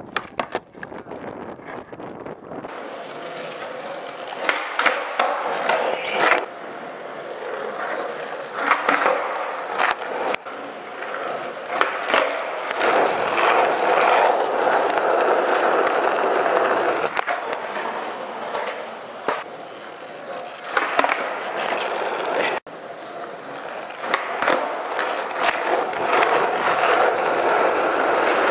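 Skateboard wheels rolling on ramps and concrete, with sharp clacks of the board popping and landing. The sound changes abruptly several times where different runs are spliced together.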